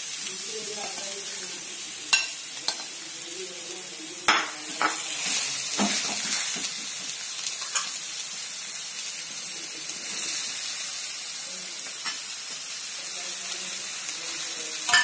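Sautéed onion, mashed potato and shredded chicken sizzling in hot oil in a pan: a steady high sizzle, broken by a few sharp clicks of a spoon against the pan as the mixture is stirred, the loudest about two and four seconds in.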